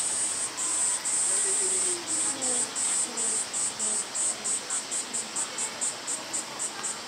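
A cicada singing a high buzz, held steady at first, then breaking about two seconds in into short pulses that come faster and faster, about four a second by the end.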